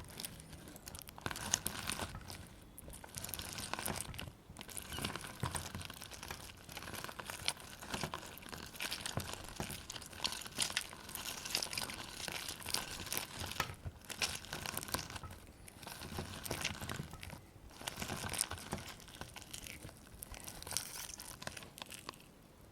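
A lemon squeezed by hand: dense crackling and squishing of peel and pulp, in repeated squeezes with brief pauses between, stopping near the end.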